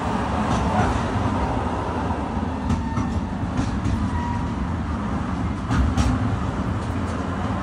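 Freight train of pocket wagons carrying semi-trailers rolling past slowly: a steady rumble of steel wheels on rail, with several sharp knocks and clanks from the wagons.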